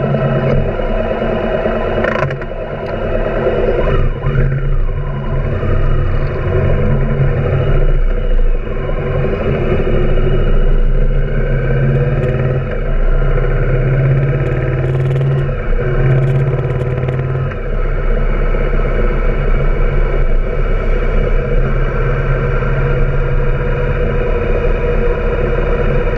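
Yamaha BT 1100 Bulldog's air-cooled V-twin engine pulling away from a stop and then running at road speed.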